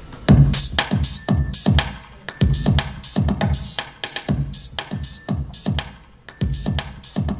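GarageBand drum loop playing back through studio monitor speakers. It is an electronic beat of deep kick drums, bright hi-hats and a few short synth tones, starting a moment in and repeating the same pattern about every two seconds.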